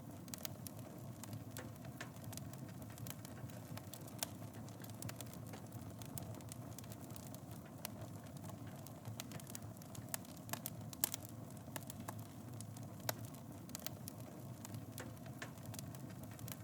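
Wood fire in a fireplace burning steadily: a low rumble of flames with irregular sharp crackles and pops, one louder pop about eleven seconds in.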